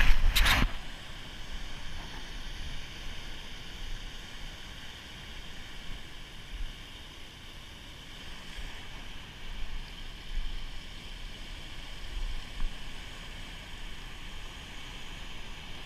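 Ocean surf washing over a rocky reef as a steady hiss, with occasional low wind rumbles on the microphone. A brief loud rubbing of a hand on the camera right at the start.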